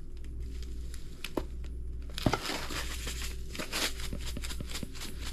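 Fine-grained salt pouring from a canister onto shrimp in a plastic container: a crackly hiss of falling grains with many small ticks. It starts about two seconds in with a sharp click and keeps going.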